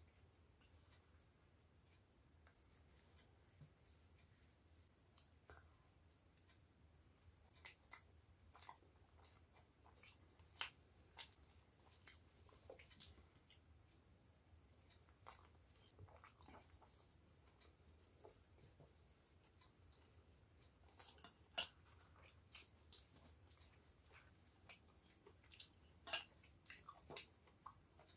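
Faint close-up eating sounds: a puri torn by hand and bitten, with scattered crackles and chewing clicks, a few of them sharper. Behind them runs a steady, finely pulsing high-pitched whine.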